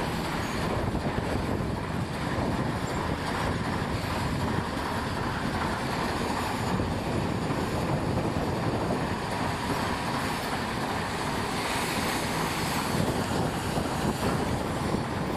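ChME3 diesel shunting locomotive moving past with passenger coaches: the steady running noise of its six-cylinder diesel engine mixed with its wheels on the rails.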